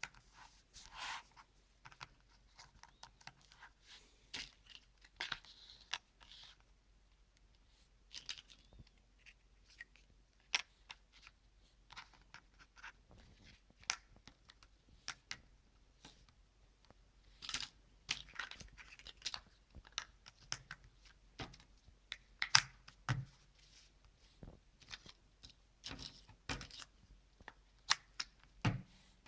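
Cardboard jigsaw puzzle pieces being handled and pressed into place: irregular light clicks, taps and scrapes with brief rustling.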